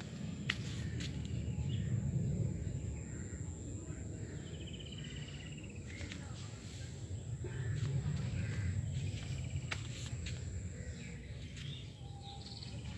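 Rural outdoor ambience: a steady high-pitched insect drone, a short bird trill about five seconds in, and a low rumble that swells twice, about two and eight seconds in.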